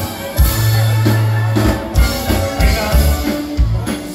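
Live Tejano band playing: a full band with bass line and strong drum beats, the accordion, guitar and keyboards in the mix.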